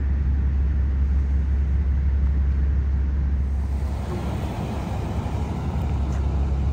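Steady low rumble of idling emergency vehicle engines. About halfway through the sound changes and a wider hiss of street noise rises over the rumble.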